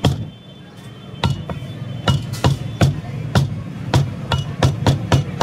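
Butcher's cleaver chopping boneless beef on a wooden chopping block: one sharp knock at the start, then a quickening run of chops about three a second from about a second in.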